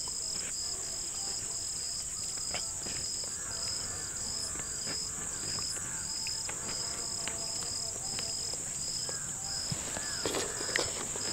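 Crickets chirping: a steady high-pitched trill with a pulsing chirp repeating about twice a second, and a few faint clicks.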